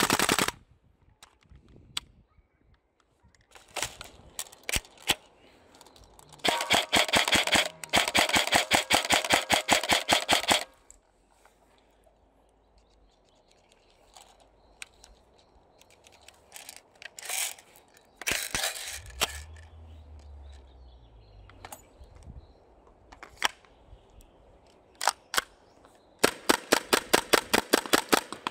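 Airsoft rifles firing: scattered single shots and rapid full-auto strings of sharp cracks. The longest string runs about four seconds, with a brief break, and another rapid string starts near the end.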